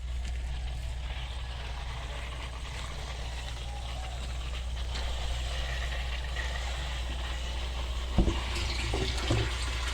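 Water pump running with a steady low hum while water rushes through and out of the newly plumbed pipe. A couple of sharp knocks near the end.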